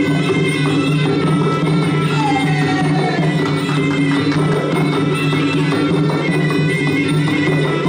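Traditional Kun Khmer fight music: a reed pipe (sralai) playing a wavering melody over drums and small hand cymbals, without a break.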